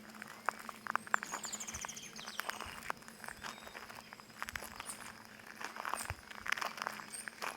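Footsteps on crystallized stones, making irregular sharp crunches, while small birds chirp, with a quick high trill about a second in.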